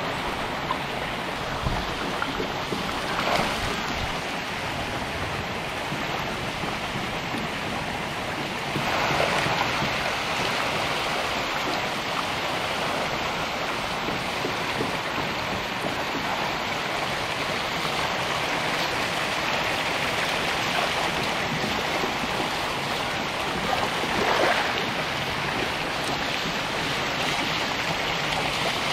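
Water splashing and churning as a dense mass of farmed catfish thrash at the surface of a crowded tank during feeding, over the steady pour of water from an inlet pipe. The splashing swells louder three times.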